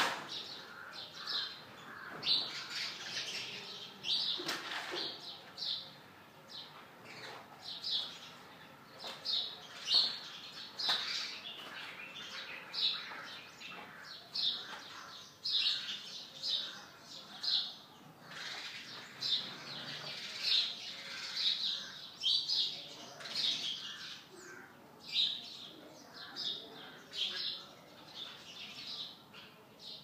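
House sparrows chirping: a steady run of short, repeated chirps, about one or two a second.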